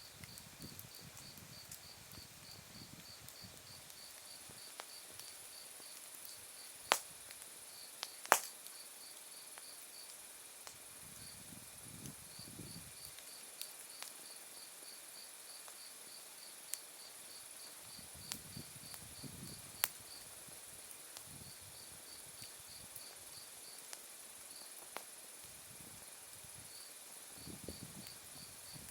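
Autumn insects calling: a steady run of short, even chirps, about five a second, over a continuous high trill. Burning firewood crackles now and then, with two sharp, loud pops about seven and eight seconds in.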